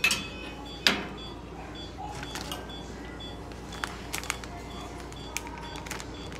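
Paper-and-plastic sterilization pouch being handled and peeled open, with two sharp crackles at the start and about a second in, then lighter scattered crinkling. Faint rapid beeping repeats behind it.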